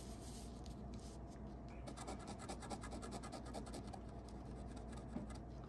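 A coin scratching the coating off a scratch-off lottery ticket, faint, in many quick short strokes.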